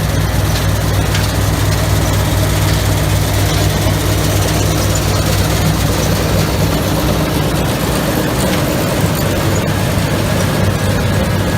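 Combine harvester's diesel engine running steadily: a loud, low hum under a broad mechanical rush. The low hum eases about seven seconds in.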